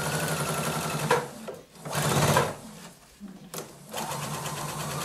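Pfaff domestic sewing machine stitching a zipper onto fabric, its motor whine rising in pitch as it speeds up. It stops about a second in, with a short burst of noise and a click in the pause, and starts stitching again near the end.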